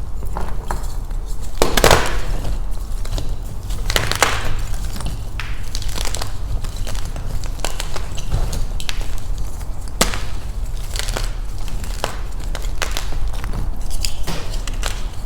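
Beasty gym chalk crushed in the hands: dense crunching and snapping crackles, with louder crunches about two and four seconds in and a sharp snap near ten seconds.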